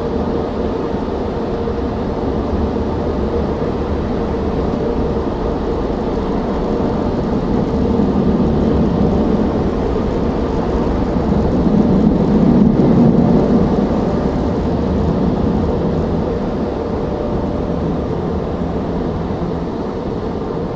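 Automatic car wash machinery heard from inside the car: a steady rushing drone with a constant hum, swelling louder twice in the middle and easing off near the end.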